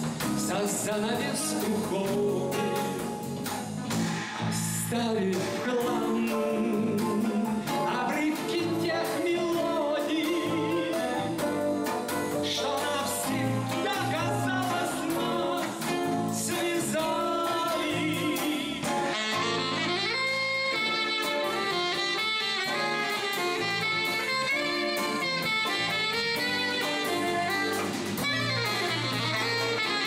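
Live jazz ballad: a man singing over acoustic guitar, bass guitar and drum kit. About two-thirds of the way through the voice gives way to a saxophone carrying the melody.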